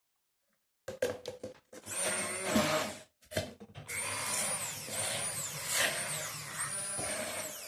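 Electric blender puréeing boiled carrots: a few quick pulses about a second in, a run of about a second, a short stop and pulse, then a longer run of about four seconds. The motor whine rises and drops in pitch several times.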